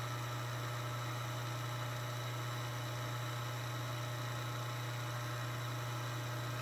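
Framon FA2 key machine's electric motor running with a steady low hum, no cutting heard.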